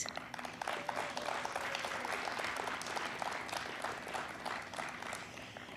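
Audience applauding: many hands clapping, easing off toward the end.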